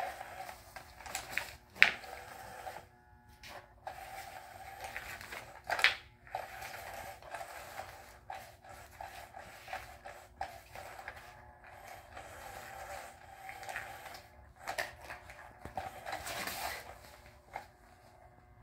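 A battery-powered cat toy's small motor running steadily under its fabric cover, spinning a wand beneath it, with irregular scratching and rustling taps as cats paw at the fabric; two sharper taps stand out, about two and six seconds in.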